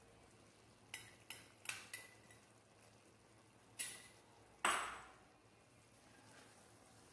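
Wooden spatula knocking and scraping against a metal pan while stirring a thick coconut-jaggery mixture: about six light knocks, some with a faint metallic ring, the loudest about halfway through followed by a short scrape.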